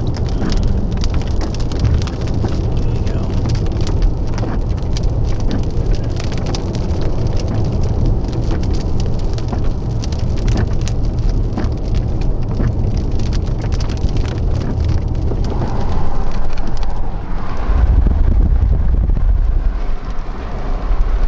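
Rain pelting the windshield and body of a vehicle, heard from inside the cabin as many scattered sharp drop hits over a heavy low rumble of storm wind and the vehicle. About seventeen seconds in the drop hits thin out and the low rumble grows stronger.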